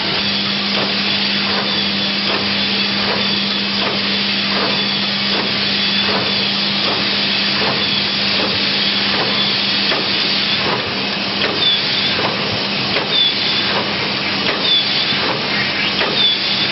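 Fully automatic screen printing machine for plastic bottles running: a steady hiss and hum with regular mechanical clicks. In the second half, short high squeaks come about every second and a half.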